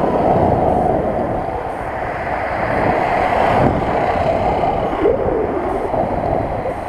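Motorcycle riding at road speed: wind rushing over the camera microphone with the small motorcycle engine running underneath, its pitch wavering a little about five seconds in.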